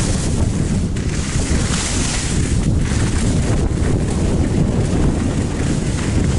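Wind buffeting the microphone during a downhill ski run, with the hiss of skis sliding over the snow swelling and fading with each turn.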